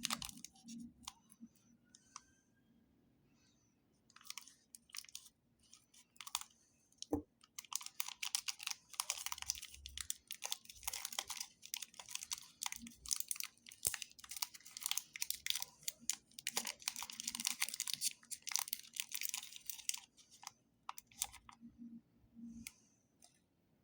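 Plastic candy wrappers crinkling and crackling as they are handled and torn, in irregular bursts, sparse for a few seconds and then dense and busy.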